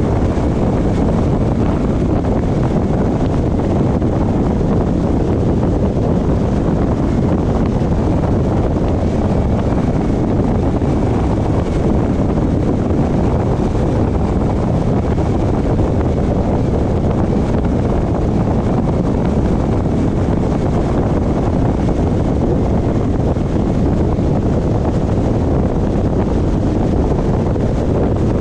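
Steady wind and road rumble from a car driving at speed, with no change throughout.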